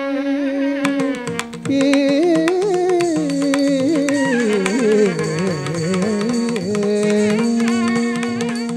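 Carnatic music accompanying a Bharatanatyam dance: a melody with sliding, ornamented pitch bends over quick rhythmic percussion strokes. It settles on a long held note near the end and begins to fade.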